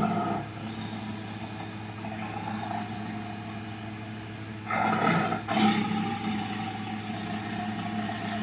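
Daspletosaurus dinosaur roar sound effect: a low drawn-out growl, with a louder roar breaking in about five seconds in and trailing off into a rumbling growl.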